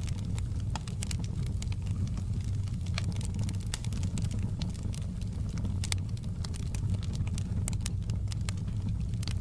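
Fireplace fire crackling, with frequent sharp pops scattered irregularly over a steady low rumble.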